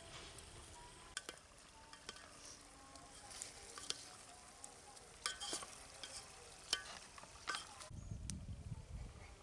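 A metal ladle stirring in a steel cooking pot, with several sharp metal-on-metal clinks, the loudest in the second half. A low rumble comes in near the end.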